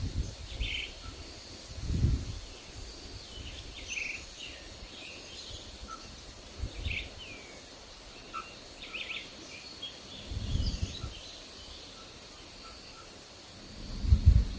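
Forest birds chirping in short, scattered calls over a faint steady insect drone, with low rumbling gusts of wind about two seconds in, around ten seconds in and loudest near the end.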